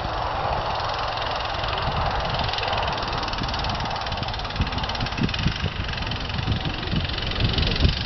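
An engine running steadily, with irregular low rumbles that grow stronger after about the halfway point.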